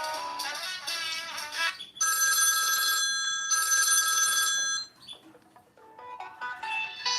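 Samsung Player Star 2 mobile phone ringtones. A synthesized melody of stepping notes ends about two seconds in, then a steady chiming ring sounds twice in a row, and after a short pause a new melody begins near the end.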